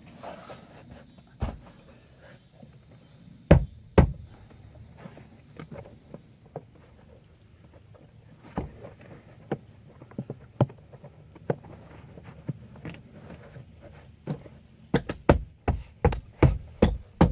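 Knocks and thumps of hands working on a minivan's plastic interior trim. There are two loud thumps about three and a half seconds in, scattered taps, and a rapid run of thumps, about three a second, near the end.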